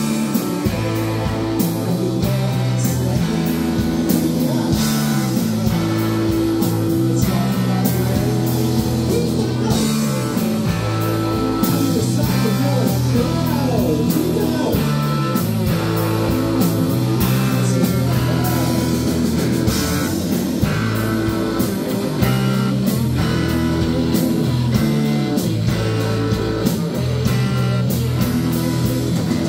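Live rock band playing loudly: two electric guitars, electric bass and drum kit, with steady drum hits throughout.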